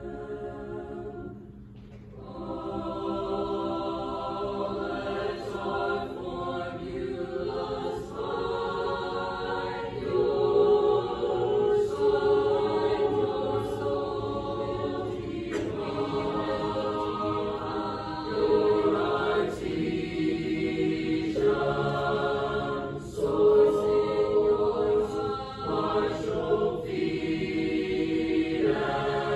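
Mixed choir singing slow, sustained chords in short phrases, with brief breaks between them.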